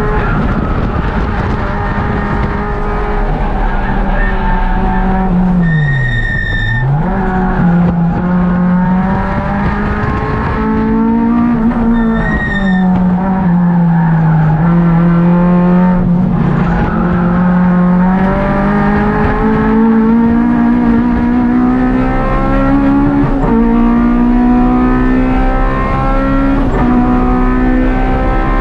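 K24-swapped Honda Civic's 2.4-litre inline-four heard from inside the stripped race car under hard track driving. The engine note drops sharply and comes back up about six seconds in, dips again around twelve seconds, then climbs steadily through the gears over the last dozen seconds. Two brief high squeals come at the two slow points.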